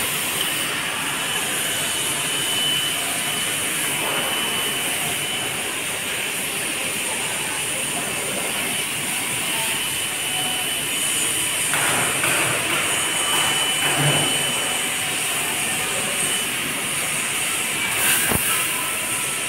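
Fiber laser pipe-cutting machine at work: a steady hiss at the cutting head, with a faint high whistle that comes and goes.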